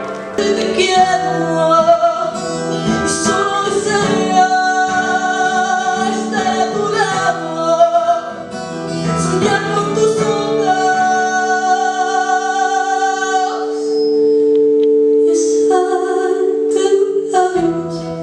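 Live music: a female voice singing over guitar accompaniment, with a long held, wavering note in the second half.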